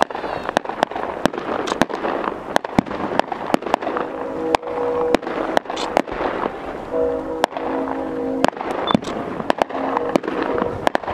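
Aerial fireworks shells bursting in a rapid, irregular series of sharp bangs, with crackling between them.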